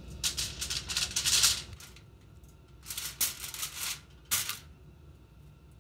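Pepper shaken from a small spice container over fish: rattling spells of shaking, a long one, then a shorter one, then a brief shake.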